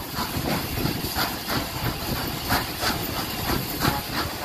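A steam train running: a steady hiss of steam with repeated short, sharp beats over the rumble of the moving train.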